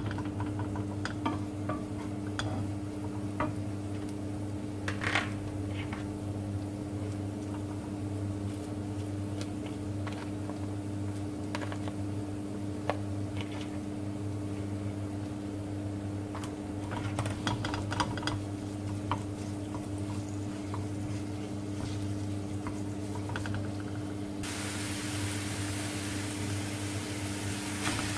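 Minced chicken sizzling in oil in a nonstick frying pan, with a wooden spatula scraping and tapping against the pan as it is stirred. A steady low hum runs underneath, and the hiss of the frying gets suddenly louder near the end.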